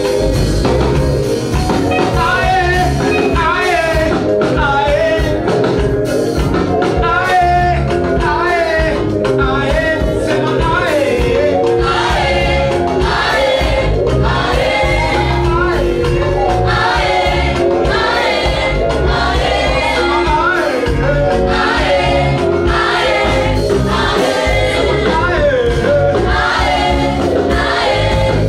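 Gospel praise music: a choir singing with a live band, drums and bass keeping a steady beat.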